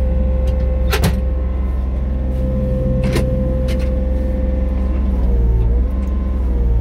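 John Deere 35D mini excavator's diesel engine running steadily, heard from inside the closed cab, with a steady whine over the engine hum. Two sharp clicks come about a second in and about three seconds in, and near the end the engine note sags briefly and recovers.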